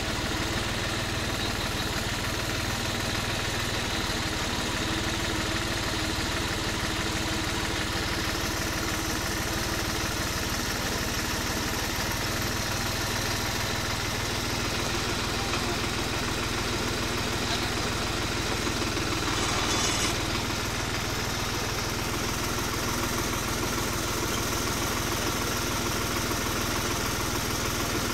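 New Holland tractor's diesel engine idling steadily while hitching up a disc harrow, with a short burst of noise about twenty seconds in.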